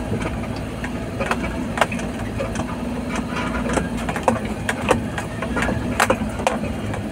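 Vehicle engine running steadily at low revs, heard from inside the cab while crawling up a steep, rutted dirt track. Frequent short knocks and rattles come from the vehicle jolting over the ruts.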